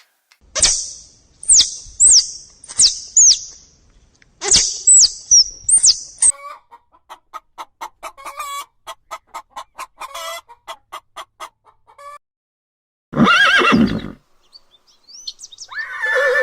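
A run of different animal calls: repeated high, falling whistled calls in the first six seconds, then a fast string of short clucking notes, and near the end a horse whinnying.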